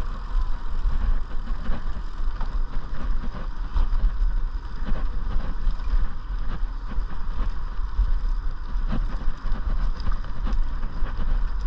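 Wind rushing over the microphone of a handlebar camera on a moving road bike, a steady deep rumble, with faint tyre and road noise.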